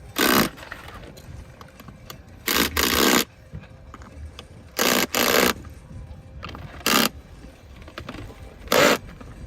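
Handheld power driver running bolts through aluminum clamping plates in short bursts, about six of them, some in quick pairs, each under a second.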